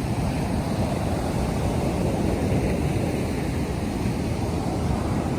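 Ocean surf washing onto the beach: a steady, even wash of waves with no single break standing out.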